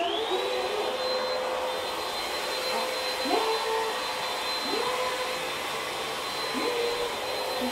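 Cordless stick vacuum running on a wood floor: a steady high whine over a rush of air, reaching full speed just as it starts. A lower note in its sound drops briefly and climbs back three times.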